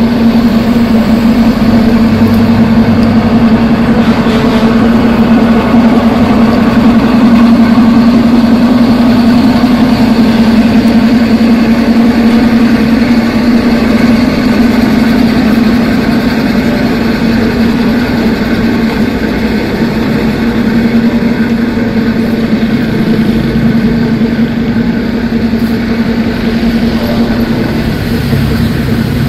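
Diesel locomotive idling with a steady low hum, a little quieter in the second half.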